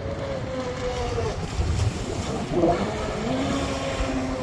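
Electric RC speedboat on a 6S battery running fast across choppy water, its motor whine wavering with throttle and dropping in pitch about three seconds in. Wind rumbles on the microphone underneath.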